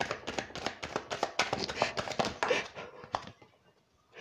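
A deck of cards being shuffled by hand: a fast run of light flicking clicks that stops about three seconds in.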